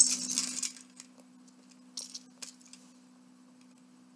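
Loose plastic Lego pieces clattering and clinking as hands rummage through a pile of them, a burst in the first second, then a few single clicks.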